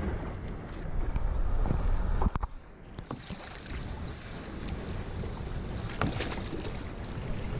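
Wind buffeting the microphone over water splashing as a hooked tarpon thrashes at the side of the boat, with a few short knocks.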